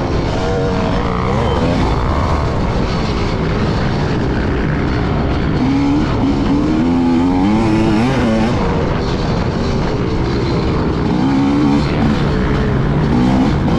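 Motocross bike engine under hard riding, its pitch climbing and dropping again and again as it accelerates, shifts and backs off, over a dense rushing noise of wind on the microphone.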